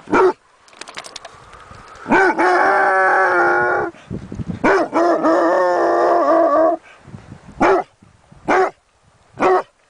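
A dog barks once, gives two long howls of about two seconds each, then barks three times about a second apart.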